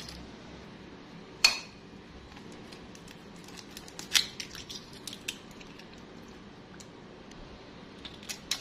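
A soft-boiled egg's shell being cracked and broken open by hand. There is one sharp knock about a second and a half in, then scattered small clicks as the shell breaks, and a few more near the end.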